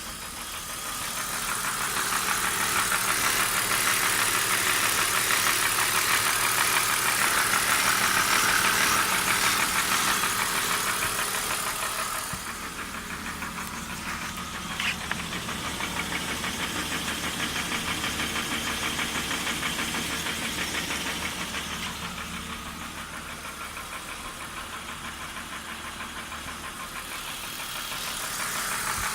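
BMW E39 engine idling with a fast, steady knocking. About twelve seconds in, the sound drops and turns quieter and duller, then rises again near the end. This fits a knock that goes away when the oil filler cap is lifted. There is a single sharp click about fifteen seconds in.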